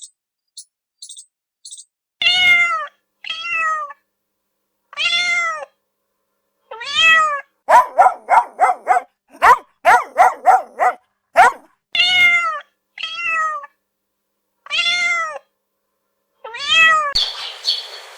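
A cat meowing again and again: single drawn-out meows, then a quick run of about ten short meows within a few seconds, then more single meows. A few short, high chirps come first, and near the end it cuts to a hissy background with high chirping.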